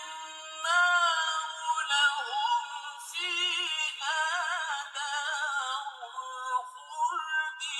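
A male reciter chanting Quranic verses in the melodic mujawwad style, his voice held high in long drawn-out phrases with quavering ornaments, with short pauses for breath between phrases.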